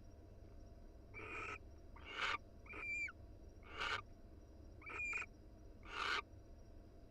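Barn owls calling in a series of about six short calls, roughly one a second: four raspy, hissing screeches that swell and cut off sharply, with two shorter, clearer chirruping calls between them.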